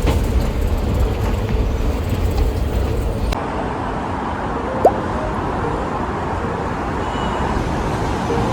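City street traffic noise: a steady rumble of passing cars, with an abrupt change in the ambience about a third of the way in and one short rising chirp near the middle.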